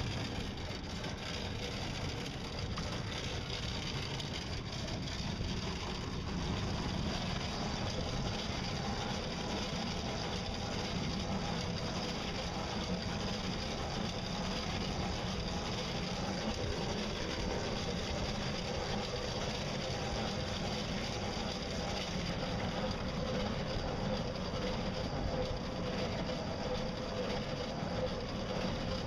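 Small solar and pedal-powered boat underway on choppy water: a steady rush of water and wind, with a faint steady hum under it.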